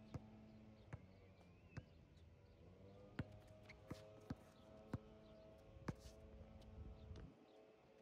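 A basketball dribbled on an outdoor hard court: about eight sharp bounces at uneven intervals, stopping about two seconds before the end.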